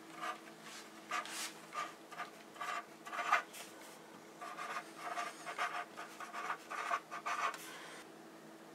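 Chalk ink pen tip scratching on a chalkboard sticker label in short strokes as letters are written, with a brief pause about four seconds in.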